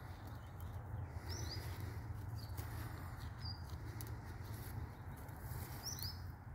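A small bird chirping now and then, about five short high notes, over a steady low hum, with faint soft rustles.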